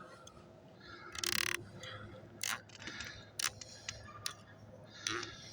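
Scattered clicks, knocks and a scrape of hand tools working a compression coupling on a buried water pipe as it is tightened.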